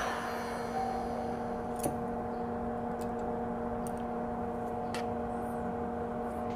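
Steady hum of a small electric fan on a soldering bench, with a few light clicks of tools against the part.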